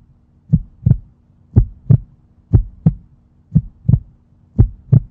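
Heartbeat sound effect: paired lub-dub thumps repeating about once a second, over a faint steady hum.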